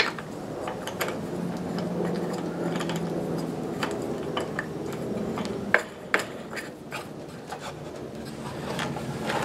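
A plastic star knob being threaded onto a bolt to clamp a wooden ring under a wooden bar on a table saw sled, with wood and plastic rubbing and scraping and a few small clicks a little over halfway through.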